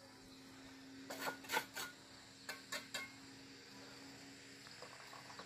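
Light clicks and taps of small hard objects, in two quick groups of about three each, over a faint steady hum.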